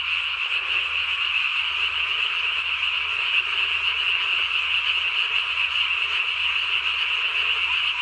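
Dense, unbroken chorus of many Japanese tree frogs calling all at once, the individual croaks merged into one steady, tremendous din at the height of the night's calling.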